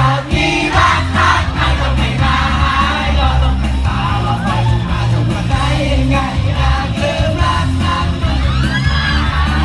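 Male voices singing a pop song live into microphones over a backing track through a PA, with a crowd of fans yelling and cheering; high-pitched fan screams rise near the end.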